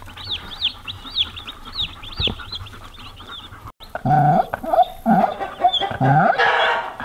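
Day-old Freedom Ranger chicks peeping: several high, falling cheeps a second. About four seconds in, the sound cuts to louder and lower chicken clucking and calls.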